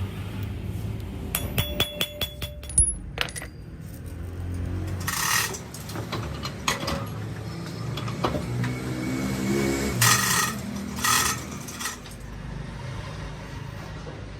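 Metal workshop sounds: a quick run of sharp metal clinks with a ringing tone about two seconds in, and a single knock shortly after, over a machine's steady low hum. Two short bursts of hiss follow later.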